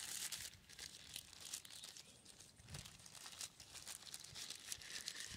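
Thin white packing wrap crinkling faintly in irregular crackles as hands unfold it.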